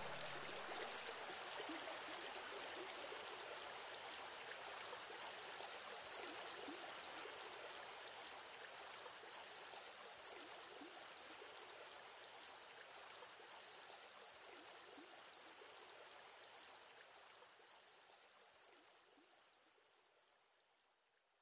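Steady rushing of a stream, the water ambience of a background soundtrack, fading out slowly to near silence by the end; the last music tones stop right at the start.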